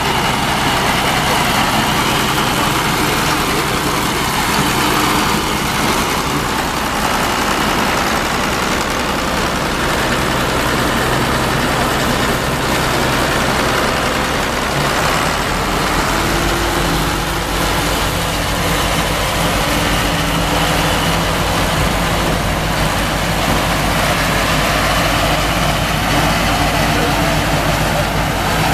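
Farm tractor's diesel engine running steadily while powering a SIPMA round baler; about halfway through the engine note changes and deepens as the tractor pulls the baler along the swath.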